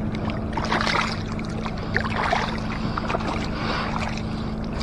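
Shallow lake water splashing and sloshing around a hand as a small carp is released, in a few swells of splashing.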